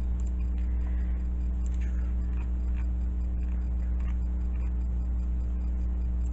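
Steady low hum with a few faint, scattered light ticks and taps.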